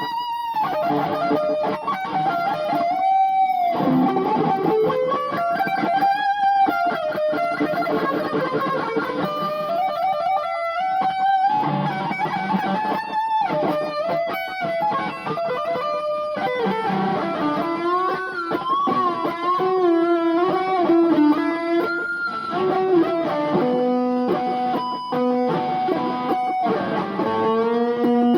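Electric guitar playing a rock and roll solo, with frequent string bends and wavering vibrato on held notes. The sound is thin and lacks top end, as recorded on an old phone.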